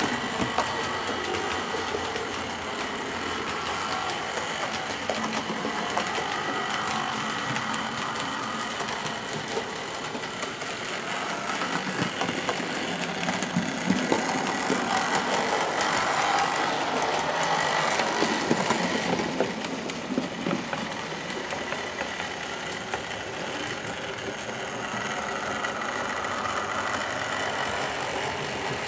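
OO gauge model locomotive running on the track: a steady electric-motor whine with the rumble and light clicking of its wheels over the rails, getting louder as it passes close about halfway through.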